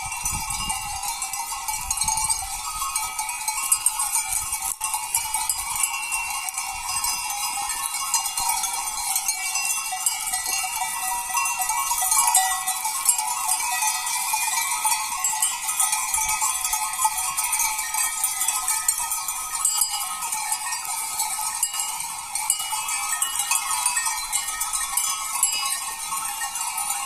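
Many goat bells clanking and ringing at once, a continuous jangle of overlapping tones, as a herd of Malagueña goats feeds on olive branches.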